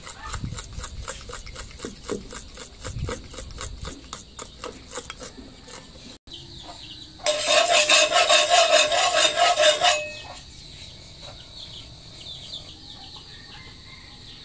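Pancake batter stirred briskly in a ceramic bowl, the utensil clicking against the bowl in a quick rhythm for about five seconds. Later, a rooster crows loudly for about three seconds.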